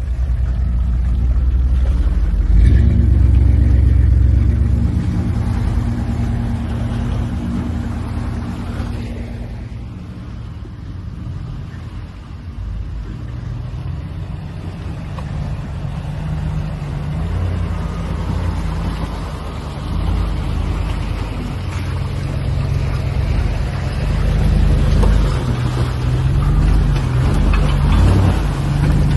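Pickup truck engines running as the trucks wade through deep water on a flooded, muddy trail, with water sloshing around them. The engine noise is loud at the start, fades a little, and then grows loud again near the end as a truck comes up close.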